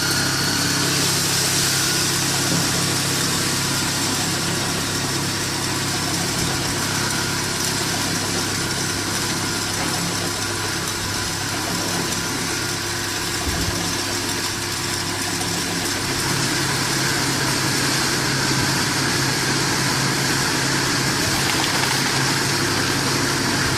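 Auger conveyors of a powder mixing and bag-filling line running steadily on their automatic cycle: a constant motor hum with an even high hiss.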